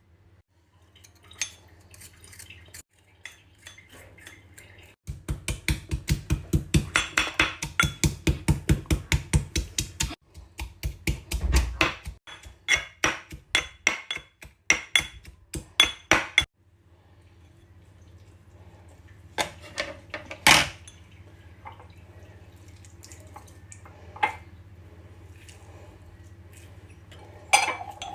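Kitchen utensils knocking and clinking as food is prepared. A fast, even run of knocks, about four a second, comes a few seconds in, followed by slower spaced knocks and a few scattered clinks later.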